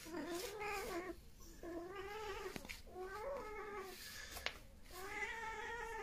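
Cat yowling: four drawn-out meows of about a second each, the pitch bending up and down within each call.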